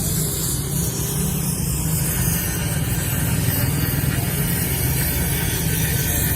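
A steady low mechanical rumble from a running engine or machine, holding an even level throughout.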